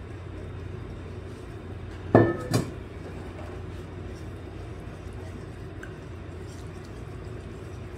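A utensil clinking twice against a mixing bowl, two sharp knocks about half a second apart a couple of seconds in, while puto batter is mixed. A steady low hum runs underneath.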